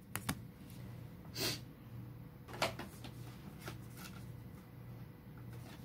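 A few brief, soft handling sounds: a foil booster pack set down on a table with a light crinkle and tap, then a couple of faint rustles, over a faint steady low hum.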